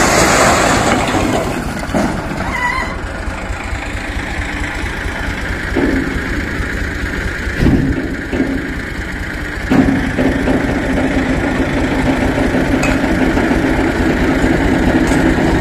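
A tipping trailer dumping a load of bricks: a rushing pour of sliding bricks that dies away within the first couple of seconds, then a few scattered brick clatters, over the steady hum of the vehicle's engine, which grows louder about ten seconds in.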